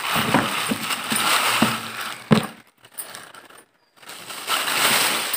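Clear plastic bag crinkling and rustling as it is handled and opened, in two stretches with a brief pause past the middle, and one sharp knock a little over two seconds in.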